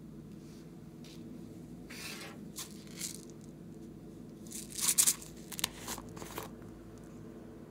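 A small plastic tub being handled and its lid pried open: a few short crinkling, scraping noises, the loudest cluster about five seconds in, over a steady low hum.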